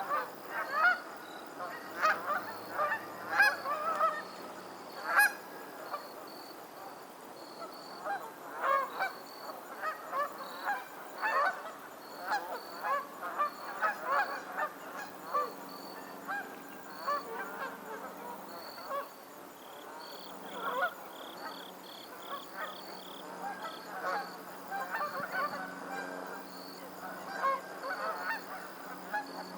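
A flock of geese honking on the water: many short, overlapping honks one after another, busiest in the first half. A faint, evenly repeated high note runs underneath.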